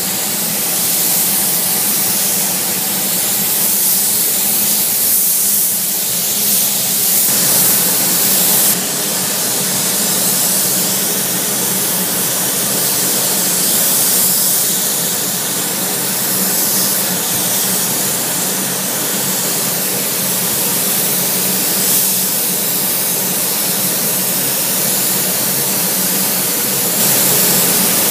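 Compressed-air spray gun hissing steadily as it sprays chrome solution, over a steady low hum.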